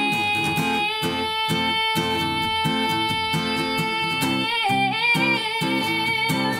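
A woman sings a long held note with vibrato over a strummed acoustic guitar, then moves on to a new phrase about four and a half seconds in.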